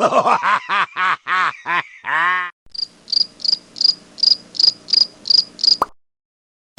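A short run of quick pitched calls, each rising and falling, about eight in two and a half seconds. Then the stock cricket-chirping sound effect, the gag for an awkward silence: about three high chirps a second, cutting off suddenly near the end.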